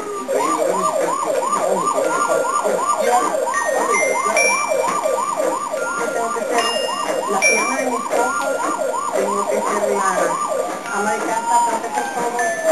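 A siren in fast yelp mode, about three rising-and-falling sweeps a second, changing to a single slower wail near the end. Short stepped electronic beeps sound over it.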